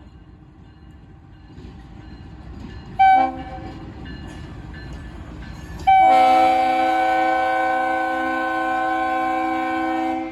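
Air horn of the BNSF GE Dash 8-40BW locomotive: a short blast about three seconds in, then one long loud blast from about six seconds to the end, over the low rumble of the slow-moving locomotive.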